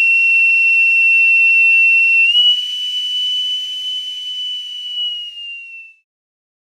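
Boatswain's pipe sounding one long, high, steady note that steps slightly up in pitch about two seconds in, then fades and dips a little before stopping near the end.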